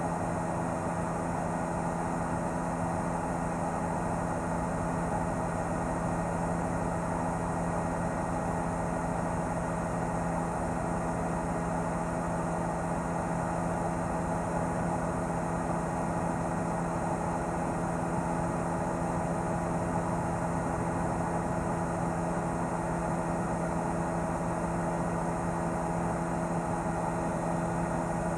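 Steady drone of a news helicopter's engine and rotors, heard from on board as a constant hum with several fixed tones and no change in pitch or level.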